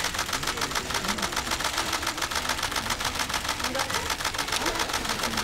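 Camera shutters clicking in rapid, continuous bursts.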